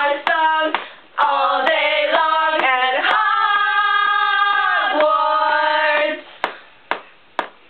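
Voices singing a tune, including one long held note, over a steady sharp ticking about twice a second. The singing stops about six seconds in and the ticking carries on alone.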